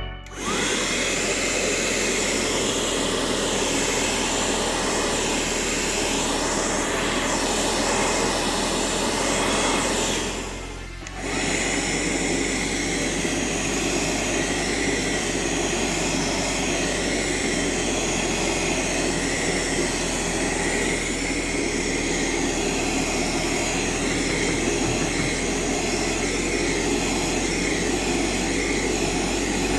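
Rechargeable handheld car vacuum cleaner running steadily with a whooshing motor-and-airflow noise. About eleven seconds in it briefly dies down and then comes back to full speed.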